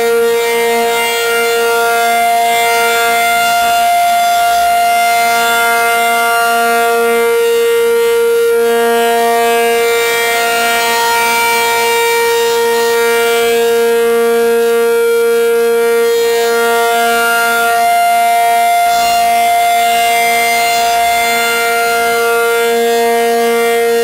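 Federal Signal 500-DH-TT outdoor warning siren sounding a steady alert: two steady pitches held together, swelling and fading as the rotating twin horns sweep around.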